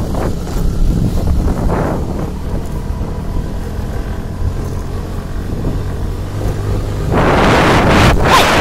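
150 cc motorcycle engine running steadily on a rough dirt road, a low hum under road and wind noise. About seven seconds in, wind buffeting the microphone gets much louder.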